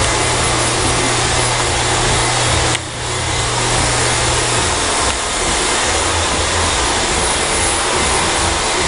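Hand-held hair dryer blowing steadily on its cool setting with the nozzle off, with a brief dip in the air noise about three seconds in.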